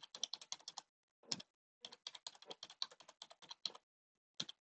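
Computer keyboard typing: a quick run of keystrokes, a short pause with a single keypress, then a longer run of about two seconds and one more keypress near the end.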